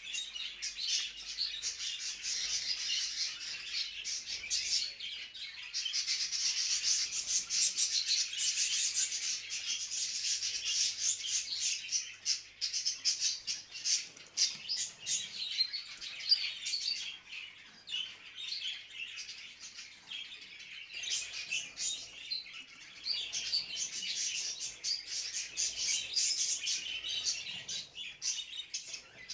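Budgerigars chattering and warbling in a cage: a dense, continuous stream of rapid high chirps with a few brief lulls. It is budgie breeding-season chatter, the kind used to bring budgies into breeding condition.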